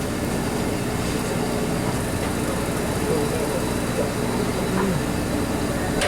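Steady mechanical drone of the fishing boat's engine or generator, with a low even hum under a wash of wind and sea noise.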